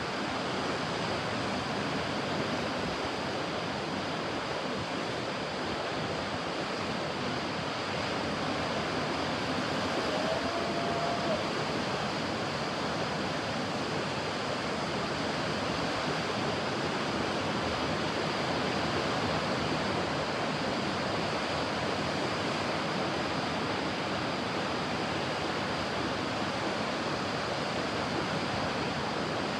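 Ocean surf: a steady, continuous wash of waves breaking on a beach, without distinct separate crashes.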